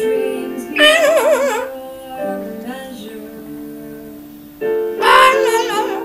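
A recorded song with a woman singing in a strongly wavering voice over sustained notes, with an Amazon parrot singing along. Two loud wavering phrases come about a second in and near the end.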